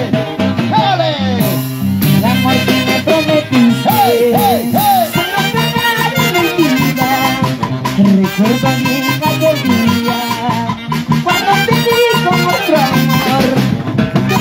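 A live Peruvian huayno orchestra playing: saxophones carry the tune with sliding, arching notes over a steady bass line and drums, at a lively dance beat.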